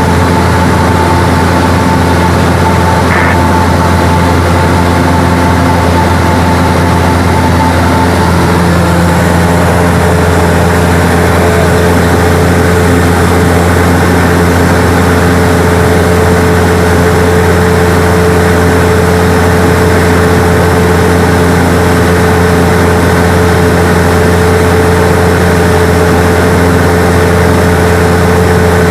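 Light aircraft's engine and propeller running loud and steady, heard inside the cabin in flight. The engine note shifts slightly about eight seconds in.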